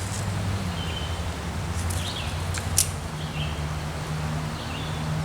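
Several short bird chirps over a steady low hum, with one sharp click a little past the middle.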